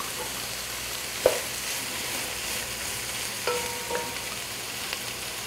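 Chopped onions frying in hot oil with a steady sizzle while a spoon stirs them in the pan. A sharp knock sounds just over a second in, and two short ringing clinks of the spoon against the pan come about three and a half and four seconds in.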